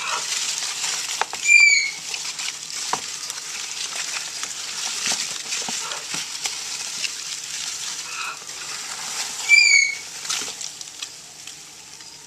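Cardboard egg-crate flats rustling and scraping as hands sort through a bin of dubia roaches. A pet bird gives a short, sharp chirp twice, about a second and a half in and again near the end. The chirps are the loudest sounds.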